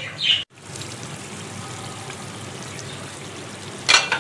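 Minced meat and tomatoes simmering in a metal karahi, giving a steady bubbling sizzle. Near the end a spatula scrapes and knocks against the pan a couple of times.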